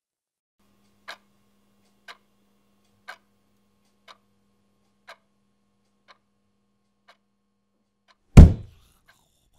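A wall clock ticking once a second, seven ticks that grow fainter, over a faint low steady hum. Near the end a single loud, deep thump cuts in.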